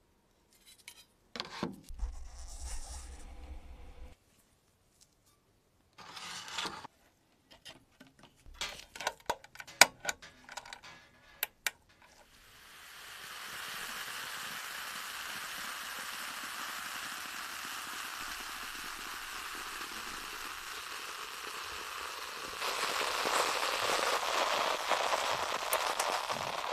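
Scattered knocks and clicks, then a steady fizzing hiss from an electrolysis rust-removal bath as current from a bench power supply bubbles gas off the rusty axe head. It gets louder for the last few seconds and cuts off when the supply's output is switched off.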